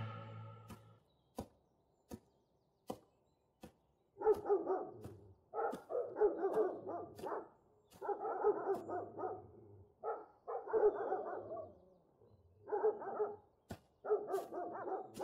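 Caged kennel dogs barking in repeated bouts, starting about four seconds in, after a few sharp ticks.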